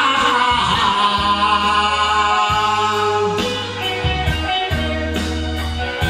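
Instrumental passage of a rock ballad played by a band: guitar over steady bass notes, with a lead melody that bends in pitch in the first second or so.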